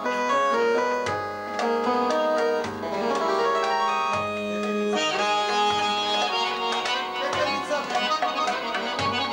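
Button accordion playing a fast folk dance tune, with a hand drum beating a steady rhythm and low bass notes under it.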